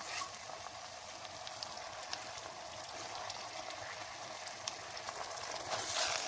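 Food frying in a pot: a steady sizzle with scattered small crackles, growing louder near the end.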